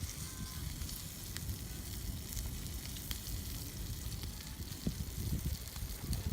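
Bacon sizzling steadily on a grill net over a small wood fire, with a few faint sharp crackles.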